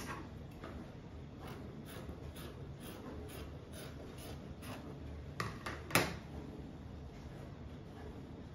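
Fabric scissors snipping through folded knit fabric, about one cut a second. A little past the middle come two sharper clacks, the second the loudest, then the fabric rubs and rustles as it is handled.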